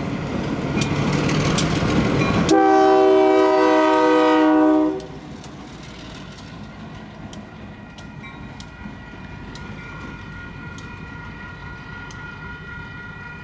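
Union Pacific diesel locomotive running light past at close range, its engine and wheels rumbling. About two and a half seconds in it sounds one long blast on its air horn, which cuts off near five seconds. As it pulls away the engine noise fades and a grade-crossing bell keeps ringing with steady, regular strikes.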